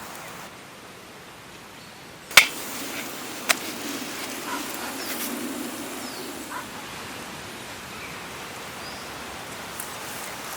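Steady outdoor background hiss, broken by two sharp clicks or knocks about a second apart, the first the loudest, with a few faint chirps.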